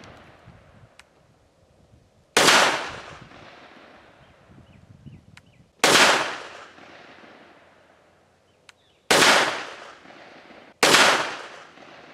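Walther WMP pistol in .22 Magnum (22 WMR), loaded with Federal 40-grain rounds, firing four single shots. The first three come about three seconds apart and the last follows quickly after the third. Each shot trails off over a second or so.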